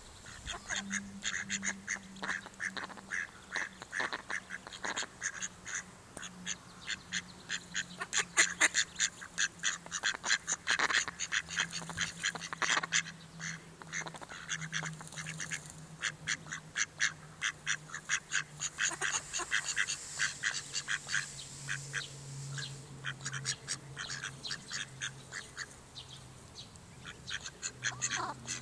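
Mallard ducks calling: a dense run of short, clipped calls, several a second, with a faint low hum underneath that slowly drops in pitch.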